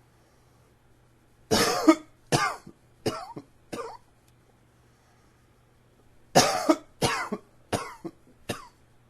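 A man coughing in two bouts of about four sharp coughs each, the first bouts the loudest, set off by an allergy tickle in the throat.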